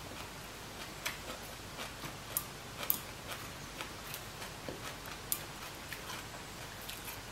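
Chopsticks clicking and scraping against ceramic and glass bowls as food is picked up and moved: scattered light ticks, the sharpest about three seconds in.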